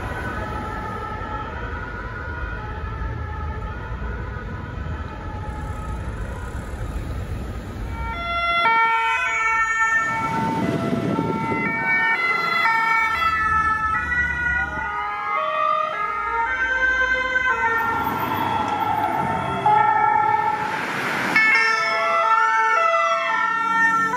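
Road traffic with the two-note siren of an emergency vehicle. About eight seconds in it gives way to a louder mix of several sirens layered over one another: two-tone horns, slow rising and falling wails, and a fast yelp near the end.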